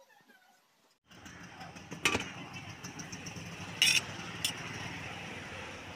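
About a second in, a steady background hum with traffic-like noise begins. Over it come a few sharp metallic clinks of serving utensils against a large aluminium pot, the loudest about two and four seconds in.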